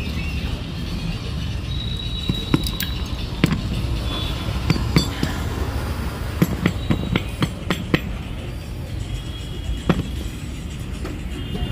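Scattered light metallic clinks and taps as a motorcycle one-way starter clutch and its small parts are handled and set down on a concrete floor, over a steady low background hum.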